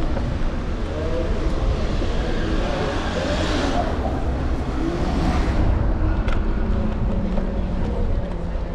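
City street traffic with a steady low wind rumble on the microphone; a car passes, swelling and fading about three to six seconds in.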